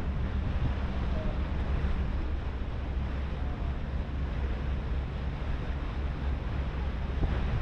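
Harbour ferry underway: the engine's steady low drone, with wind buffeting the microphone and water rushing past the hull.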